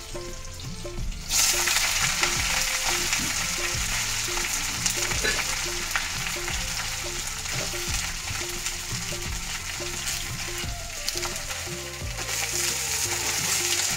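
Carrots, French beans and potatoes hitting hot oil in a steel kadai about a second in, then sizzling loudly as they fry.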